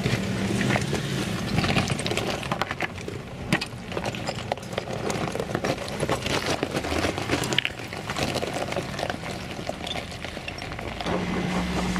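Loose broken rock crunching, cracking and clattering under the off-road tyres of a Nissan Patrol as it crawls slowly over a stony slope, with the engine's low hum beneath. Music comes in near the end.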